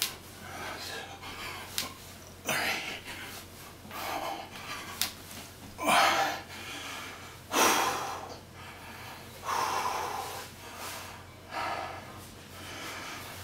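A man's heavy, gasping breaths as he does bodyweight squats near the end of 100 reps, one hard breath about every two seconds. A couple of faint sharp clicks are heard, a crack that he thinks comes from his right knee.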